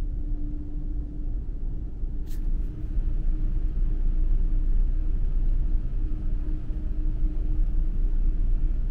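Steady low rumble of a ferry's engines heard inside the ship, with a faint steady hum over it and a single brief click about two seconds in.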